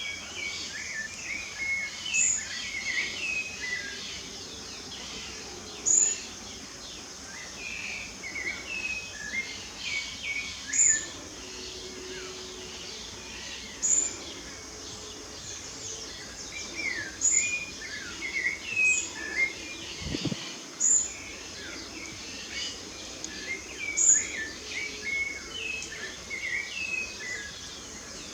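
Several songbirds singing and chirping, with one sharp high call repeated every two to four seconds, over a steady background hiss.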